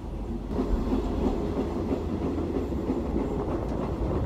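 Passenger train running, a steady low rumble of the carriages and wheels on the rails, getting a little louder about half a second in.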